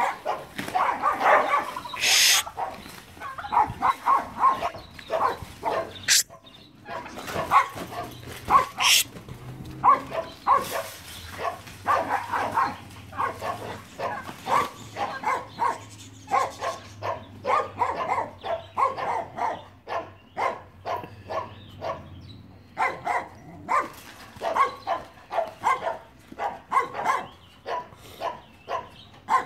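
Dogs barking excitedly in quick runs of short, sharp barks, several a second, almost without pause, at a dog on the other side of the fence.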